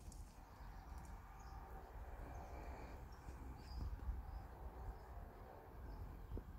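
Faint outdoor ambience: a steady low rumble on the microphone with scattered faint bird chirps.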